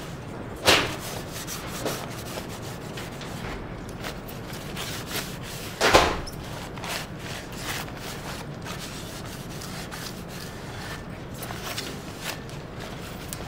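Paper towel rubbing along the edges of an inked zinc intaglio plate as excess ink is wiped off, a steady dry rubbing with two louder sudden sounds, about a second in and again near the middle.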